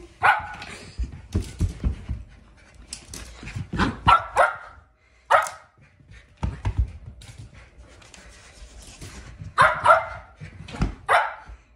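Shetland sheepdog barking in short bursts and panting as it runs zoomies, its paws thumping and scrabbling on the floor between barks. The barks come in clusters, about four seconds in and again near the end.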